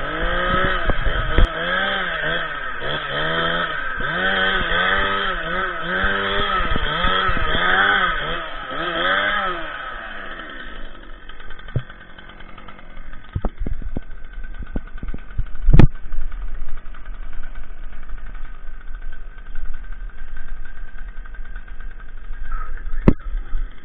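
Stihl MS 261 two-stroke chainsaw revving up and dropping back about once a second, roughly a dozen times, for the first ten seconds. After that an engine idles steadily under sharp metallic clanks of a steel winch chain, the loudest about 16 seconds in.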